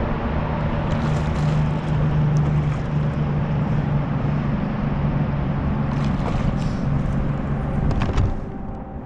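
A steady low hum over a continuous rumbling hiss, with a few sharp clicks near the end, after which the sound drops away.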